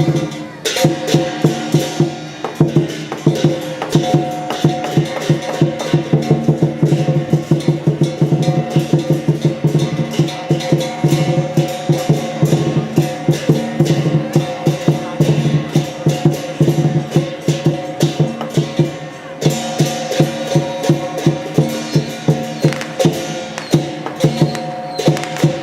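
Lion-dance percussion ensemble playing: a drum beaten in fast, dense strokes over steady ringing gong tones.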